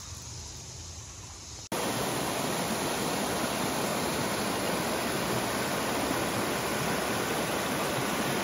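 Creek water rushing over a small rocky cascade, a steady, even rush that starts abruptly about two seconds in after a softer stretch of gently moving water.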